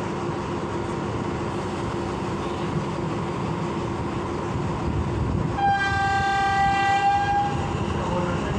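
Train horn sounding one steady note for about two seconds, starting a little past halfway, over the steady low rumble of the train's engine standing at the platform.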